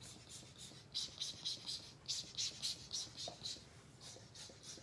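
Short hissing puffs of air from a squeezed rubber bulb puffer, a Tim Holtz Distress marker tool, blowing across wet alcohol ink. There are several puffs a second, starting about a second in and dying away after about three and a half seconds.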